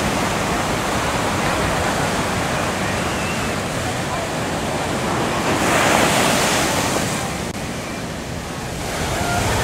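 Ocean surf breaking on rocks and rushing through a channel in the rock into a cove: a continuous rush of breaking water that swells louder about six seconds in, eases off briefly, then builds again near the end.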